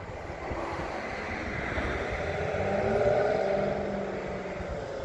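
A motor vehicle's engine hum that swells to its loudest about three seconds in, then fades.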